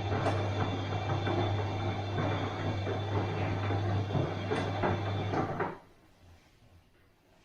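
Bosch washing machine running: a steady motor hum with dense clicking and rattling over it, cutting off suddenly about six seconds in.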